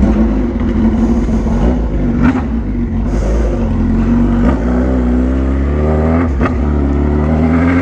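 Motorcycle engine pulling away under acceleration, starting suddenly and loud. Its pitch climbs and then drops at each gear change, about every two seconds.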